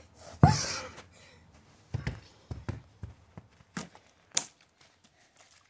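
A series of thuds and knocks from a ball and a plastic water bottle being thrown and kicked about on artificial turf. The loudest comes about half a second in; more follow over the next four seconds.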